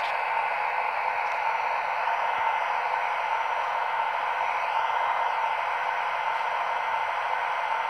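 Steady fan hiss of an E402 electric locomotive's traction-motor blowers, recorded from the real engine and played by the sound decoder of an Acme E402B model through its small speaker, with no deep tones. A faint higher whine wavers up and down in pitch above the hiss.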